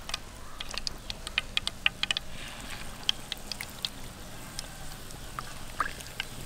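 Marinated fish pieces sizzling in hot oil in a frying pan, with quick crackles and pops that are thickest in the first couple of seconds and then thin out.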